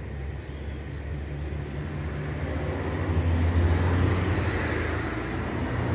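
Road traffic going by: a motor vehicle's low engine drone with tyre noise, swelling to its loudest about halfway through and easing off a little near the end.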